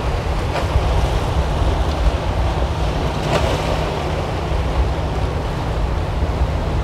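Choppy sea water washing and splashing around shoreline boulders, under strong wind buffeting the microphone with a steady low rumble.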